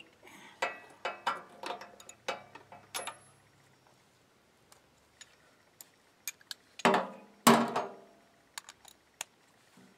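Scattered clicks and clatter from hands working the controls and parts of a portable generator that will not start, its engine silent. About seven seconds in come two louder noisy bursts, each under half a second.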